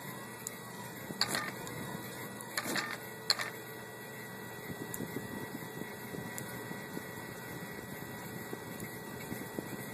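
3D printer at work printing an ABS part: a steady mechanical hum with faint constant high tones, a few sharp clicks in the first few seconds, then a fast, irregular ticking from about halfway on.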